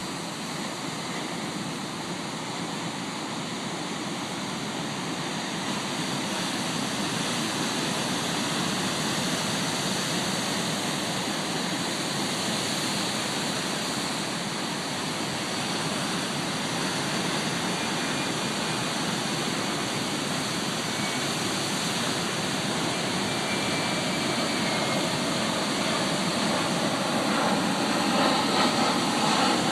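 Steady rushing noise of ocean surf breaking. Near the end a jet aircraft overhead grows louder, adding a rising tone over the rush.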